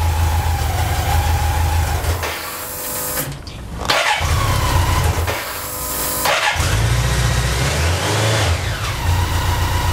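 Electric starter cranking a BMW K100's four-cylinder engine in three bursts of a few seconds each, with the starter's whine sweeping as it spins up. The engine turns over without settling into running while the new fuel pump primes the fuel system.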